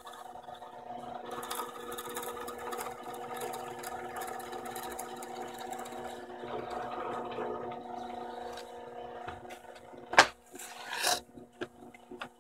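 Drill press motor running steadily, a hum with a clear pitch, while a 1.5-inch bit bores through a 2x4, with rougher cutting noise over the first several seconds. About ten seconds in there is one sharp knock, followed by a short scraping burst.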